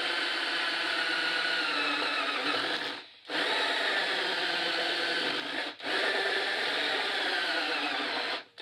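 Cordless drill spinning a hole saw against the side of a polyethylene bucket, the saw grinding and rubbing on the plastic. The motor's pitch falls as it labours, and it stops briefly twice, about three seconds in and near six seconds. The drill's battery is nearly flat, so the saw barely cuts.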